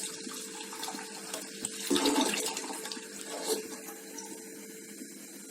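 Water being poured into a kadhai holding ginger-turmeric paste: a steady pour with splashing, briefly louder about two seconds in.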